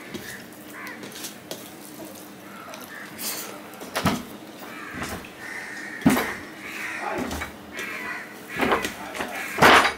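Fingers mixing rice with curry on a steel plate: soft squishing with scattered sharp clicks of fingers against the metal, the loudest near the end.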